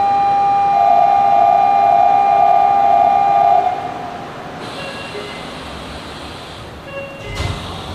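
Subway train standing at the platform: a steady electronic signal tone, typical of a departure signal, sounds for about three and a half seconds and stops abruptly, followed by a quieter hiss and a dull thump near the end.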